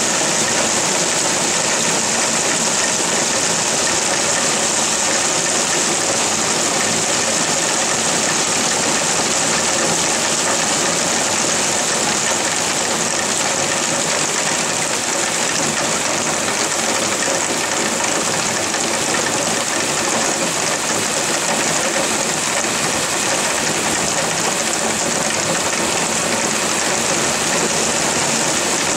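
Heavy rain falling in a steady downpour, an even hiss that does not let up.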